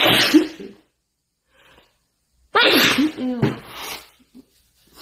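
A young woman sneezing twice into a tissue, once right at the start and again about two and a half seconds in; the second sneeze is longer and voiced. The sneezes come from allergic rhinitis.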